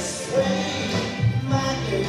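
Recorded music with a bass line and singing, playing in a large hall.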